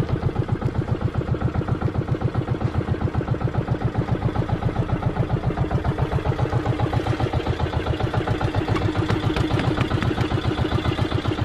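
A motorized bangka's engine running steadily, with a fast, even chug of several beats a second.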